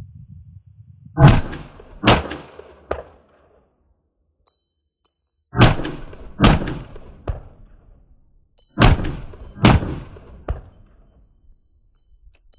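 Slightly overgassed AR-15 carbine with a 12.5-inch barrel, A5H2 buffer and Sprinco green spring, firing .223: three pairs of shots, each pair followed by a fainter sharp crack.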